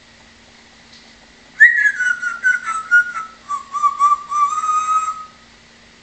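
African grey parrot whistling: starting about a second and a half in, a whistled phrase slides down from a high note, then holds a lower, wavering tone in short broken notes for several seconds before stopping.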